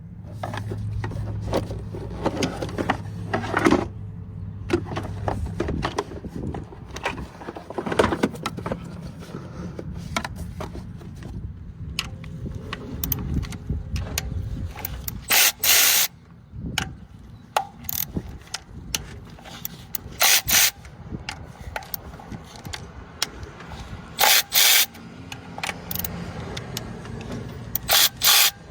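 Hand-tool work on the engine to remove the spark plugs: many irregular clicks, knocks and rattles of tools on metal, with four or five short, loud bursts in the second half.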